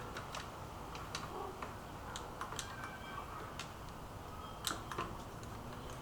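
Scattered light clicks and taps, irregular and about a dozen in all, with a louder pair a little before the end: small tools and wooden pieces being handled during woodworking.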